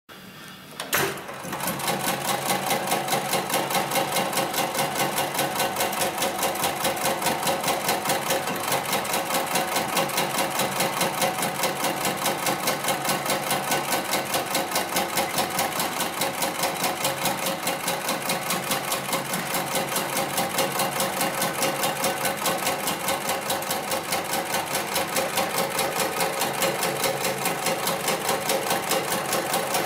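Heavy-duty programmable pattern sewing machine starting about a second in, then stitching through a thick multi-ply webbing sling at a fast, even rate.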